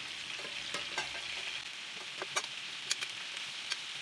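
Oil and ghee sizzling steadily in a cooking pot, with a metal spatula clicking sharply against the pot about five times as the food is stirred or lifted.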